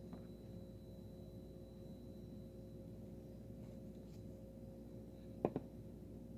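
Faint steady room hum, with two quick plastic clicks close together about five and a half seconds in as the card's clear plastic holder is handled and turned over.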